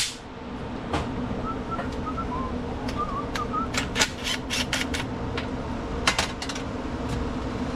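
Scattered light clicks and taps of a small metal carburetor and a cordless tool being handled on a steel workbench, over a steady low hum.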